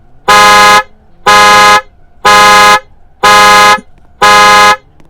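Car horn sounding in a car alarm's panic mode: loud, even honks of about half a second each, repeating about once a second, five in a row.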